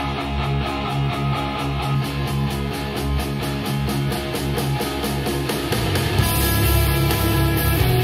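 Guitar-driven rock track played back through a Marshall Stanmore II Bluetooth speaker, then through a Klipsch The Three II partway through, both picked up by room microphones.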